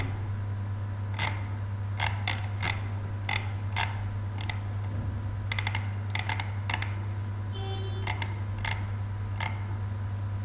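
Computer mouse clicks and scroll-wheel ticks: about a dozen scattered sharp clicks, with a quick run of several ticks in the middle. A steady low hum sits underneath.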